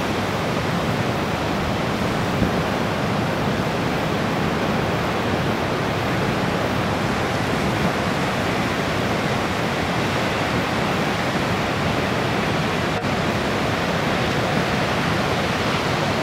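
Steady roar of heavy ocean surf, an even rushing noise with no breaks.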